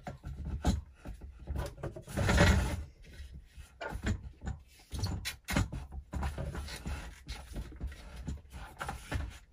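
Plastic clicking, knocking and rubbing as a red plastic grip wrench is fitted and adjusted around the pump head of a vacuum brake bleeder, with one louder rub lasting about half a second a little over two seconds in.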